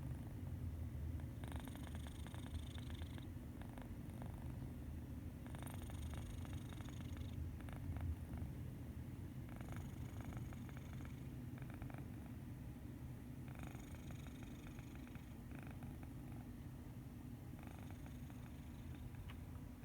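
Sleeping domestic cat snoring softly: a continuous low rumble, with a breathier rasp on each breath about every four seconds.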